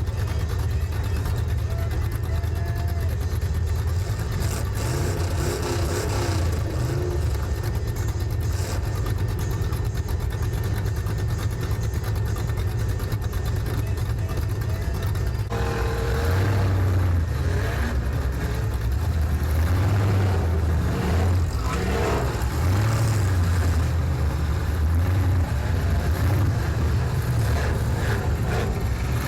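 Engines of old demolition-derby cars running and revving, a steady low rumble, with an abrupt change in the sound about halfway through.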